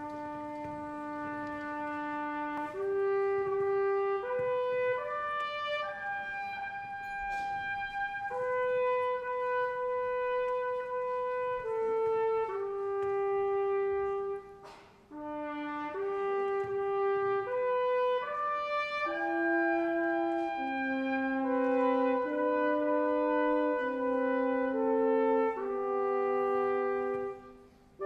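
A slow solo brass melody of long held notes, in two phrases with a brief pause about halfway through.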